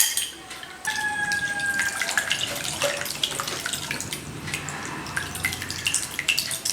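Homemade electric egg beater whisking separated egg whites in a bowl: a wet, splashy churning with many small clicks, starting about a second in with a brief whine.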